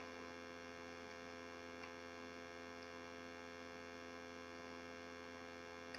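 Faint, steady electrical hum with a buzzy edge, unchanging throughout.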